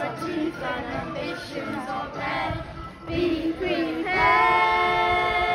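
Voices singing over a backing track, closing on one long held note from about four seconds in.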